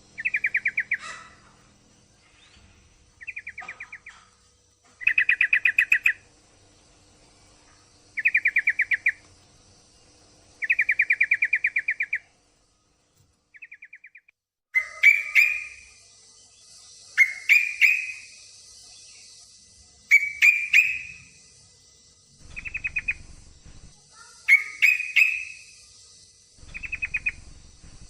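Yellow-vented bulbul (trucukan) giving a series of short, rapid chattering trills, each about a second long, repeated every two to three seconds. About halfway through, the calls turn louder, each starting with a sharp upward sweep. The recording is billed as a female in breeding condition calling to a male.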